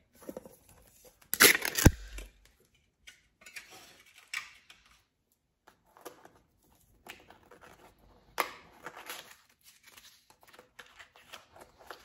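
A pipe tobacco tin being opened: one loud, sharp sound about a second and a half in as the lid comes free, then scattered rustling, crinkling and tearing of the paper packing inside.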